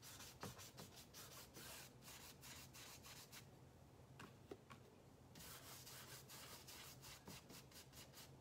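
Paintbrush scrubbing wet paint onto a stretched canvas in quick, short back-and-forth strokes, faint. The strokes stop for about two seconds near the middle, then start again.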